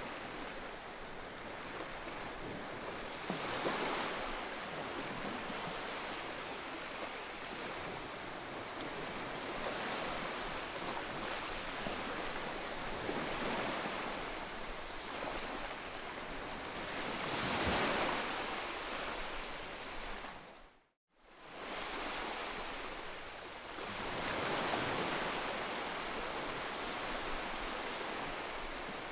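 Ocean waves breaking and washing on the shore, a steady rushing surf that swells with each wave every few seconds. About two-thirds of the way through the sound dips and cuts out for a moment, then fades back in.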